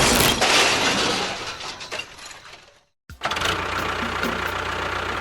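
A crashing, clattering noise that fades out over about three seconds; after a sudden break, a steady mechanical hum with faint regular ticks, like a small motor running.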